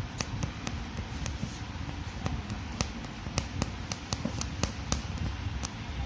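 Hand embroidery needle piercing taut fabric: sharp, irregular ticks about two or three a second, over a low steady rumble.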